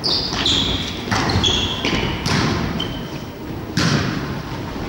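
Volleyball struck four times, about a second apart, during a rally, each hit echoing in the hall. Short squeaks of shoes on the wooden gym floor come between the hits.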